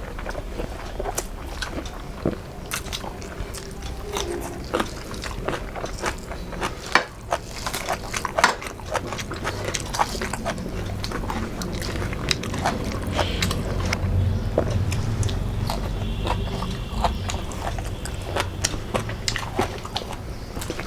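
Close-miked eating sounds: a person chewing soft food, with many short wet mouth clicks and smacks scattered throughout and a few louder ones a third of the way in.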